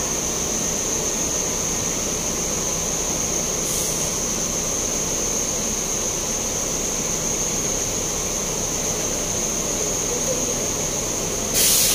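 Heavy diesel machinery running steadily during a crane lift of a 24-ton excavator, a low rumble with a constant high-pitched whine. Two short hisses cut in, one about four seconds in and a louder one near the end.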